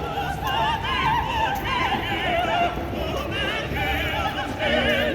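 Music with a voice singing in an operatic style, each held note wavering with strong vibrato, over a steady low rumble.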